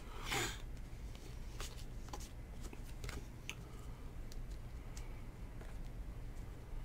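2019 Donruss Elite football cards being slid and flicked through by hand: one louder swish right at the start, then soft scattered card clicks and rustles, over a low steady hum.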